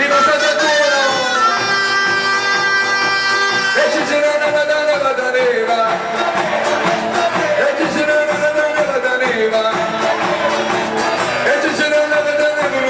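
Pastellessa folk music from a bottari band: wooden barrels beaten in a dense rhythm under held pitched notes for the first few seconds, then a sung melody.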